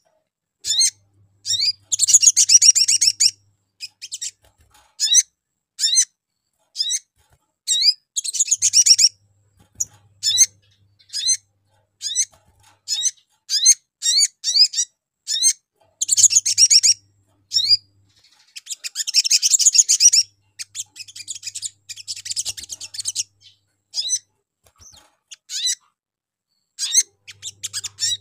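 Male olive-backed sunbird singing: sharp high single chirps between several runs of fast, dense twittering, each run about one to two seconds long.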